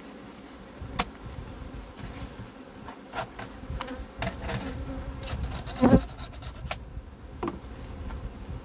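Swarm of honeybees buzzing steadily around an open hive, with a scatter of sharp wooden knocks and taps as hive frames and boxes are handled; the loudest knock comes about six seconds in.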